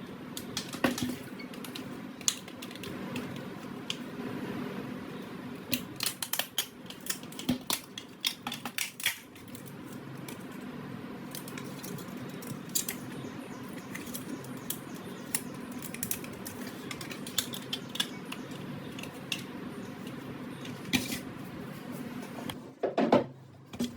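Hard plastic and metal items clicking and clattering as they are handled, in scattered bunches with a dense run of clicks about a quarter of the way in, over a steady low hum.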